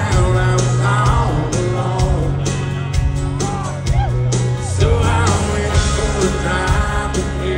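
Country band playing live: drums, guitars and bass with a singing voice over them.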